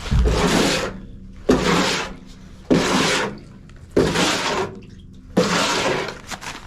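A worker cleaning up by hand with a broom or shovel: a regular series of scraping, swishing strokes, about one every second and a quarter, each starting sharply and fading out.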